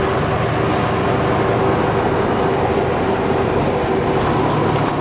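Cab of a loaded truck on the move, heard from inside: steady engine drone and road noise at cruising speed.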